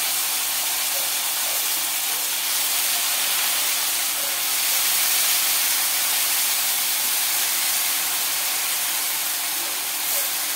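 Eggplant and potato pieces frying in hot oil in a wok, giving a steady sizzle.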